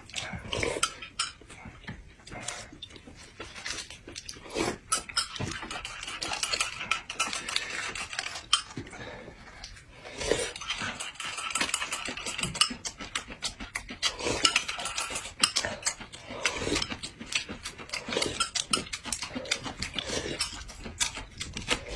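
Close-up eating sounds: slurping and sipping from a spoon, chewing, and many small clinks of a metal spoon against a glass cup.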